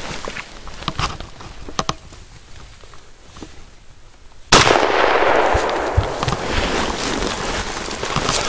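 A single gunshot about four and a half seconds in, aimed at a wounded moose. Before and after it, dry swamp grass and brush rustle against the gun and microphone as the shooter pushes forward.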